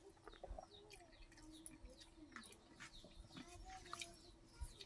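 Faint bird calls, including low cooing, with a few small clicks over a quiet background.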